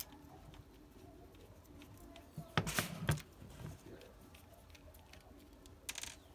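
Plastic drill housing and a small screwdriver being handled: light clicks and rustles, with a cluster of plastic knocks about two and a half seconds in and another short clatter near the end.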